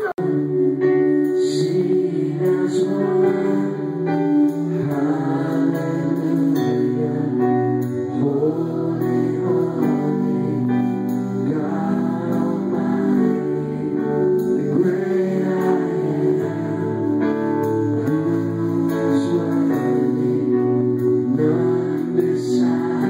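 Live church worship band playing: a singer at the microphone over long held keyboard chords, loud and steady.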